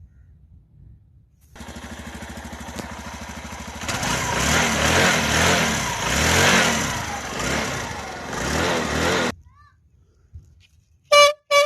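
Suzuki motorcycle engine running with a steady pulse, then revved in rising and falling swells before it cuts off suddenly. Near the end come two short, loud toots from the horn fitted in its silencer.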